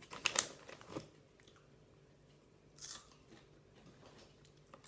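Crinkly crisp packet rustling in the first second as a hand reaches in, then a vegetable crisp crunched between the teeth with a sharp crunch about three seconds in and light chewing around it.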